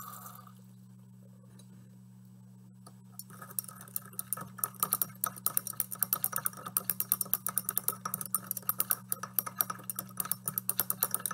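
Water from a wash bottle finishes pouring into a glass beaker at the very start. From about three seconds in, a thin rod clinks rapidly against the inside of the Pyrex beaker, about seven light clinks a second, as solid citric acid is stirred into the water to dissolve it.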